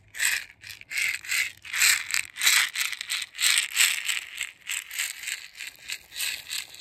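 Woven basket rattle shaken in a steady rhythm, a run of short, hissy shakes of seeds or beads against the woven walls.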